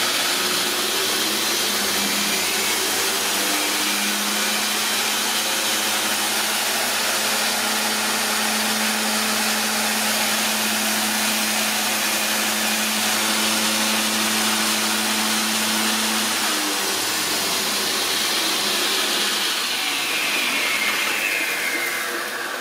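Belt grinder driven by a DC treadmill motor on a variable-speed controller, running at high speed with a steady whine that steps up in pitch about two seconds in. An open door on the machine rattles from the vibration. Near the end the whine falls steadily in pitch as the belt slows.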